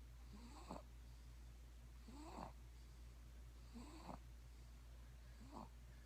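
Faint snoring of a young sleeper: four short breaths, each rising in pitch, about one every second and a half.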